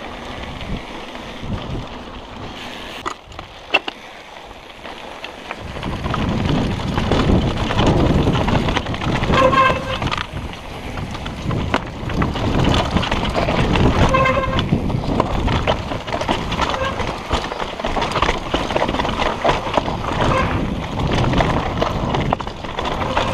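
Mountain bike riding fast down a rocky dirt singletrack: a steady rush of tyre and trail noise with rattles and knocks from the bike over the rough ground. Two short tooting squeals stand out, one about a third of the way through and another a little past the middle.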